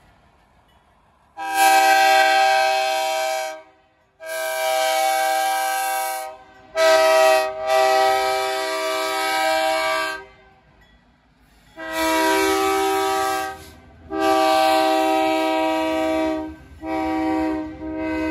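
EMD diesel freight locomotive's multi-tone air horn sounding the grade-crossing signal twice over: long, long, short, long. The locomotive's low engine rumble comes up under the horn in the second half as it draws near.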